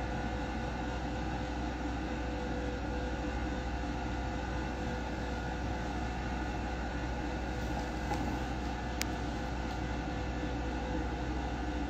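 Steady background hum and hiss with a few faint steady tones, and a single short click about nine seconds in.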